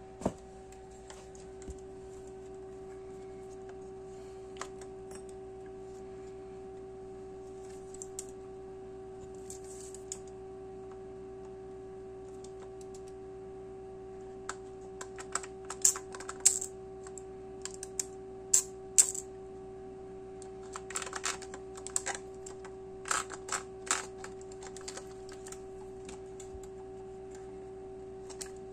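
Clicks and taps from a Lubitel twin-lens reflex camera being handled, sparse at first, then in quick loud clusters from about halfway through. A steady hum runs underneath.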